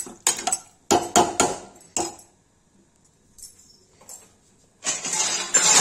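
Metal ladle knocking and scraping against the side of an aluminium pressure cooker pot while stirring a watery potato curry, several sharp clinks in the first two seconds. About a second of louder rasping noise comes near the end.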